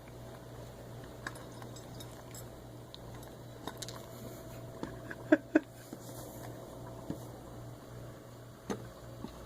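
A pet wearing a plastic cone collar eating from a bowl: scattered small clicks and knocks, with two sharp louder clacks about five seconds in and another near the end, over a steady low hum.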